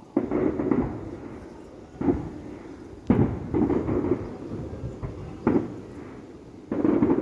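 Distant fireworks shells bursting: about five booms a second or two apart, each trailing off in a low rumbling echo.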